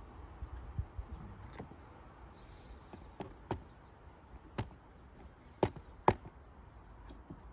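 A hammer driving a small nail into a wooden beehive frame: about six sharp strikes at uneven intervals, the last two the loudest.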